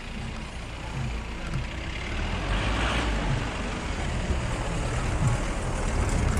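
Engine of a four-wheel-drive jeep running as it crawls over a rough, rocky dirt road, with tyre and gravel noise and scattered low knocks from the bumps. A swell of hiss comes about two and a half seconds in, and the sound grows louder toward the end.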